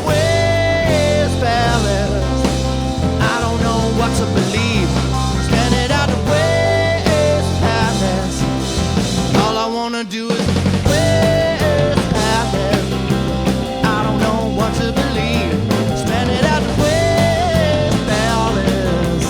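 Rock band playing an instrumental passage: drum kit and bass under a lead melody that bends in pitch, with a brief break about halfway through before the band comes back in.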